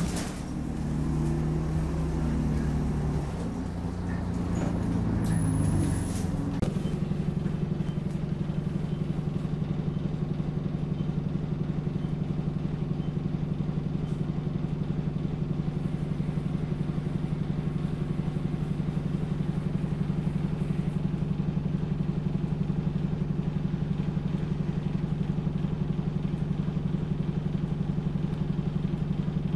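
Optare Solo bus's diesel engine shifting in pitch for the first several seconds, then settling from about seven seconds in into a steady, even low drone, as at idle.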